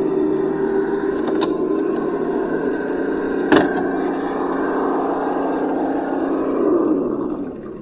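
Traxxas TRX6 RC crawler's electric motor and geared drivetrain whining steadily as it crawls over rocks and roots, with a sharp knock about three and a half seconds in. Near the end the whine falls in pitch and fades as the truck slows.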